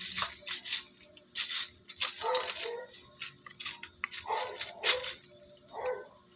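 Stiff plastic scrub brush rasping over a raw blue swimmer crab's shell in short, irregular strokes, with several short pitched calls in the background.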